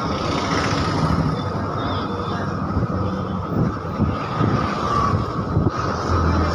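Steady engine and road noise from inside a moving bus, driving along a town street.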